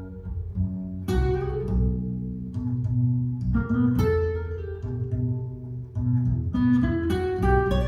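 Jazz guitar-and-bass duo music: nylon-string acoustic guitar plucking ringing melody notes and chords over a walking double bass line, played back through KEF LS50 Meta bookshelf speakers driven by a Rega io amplifier.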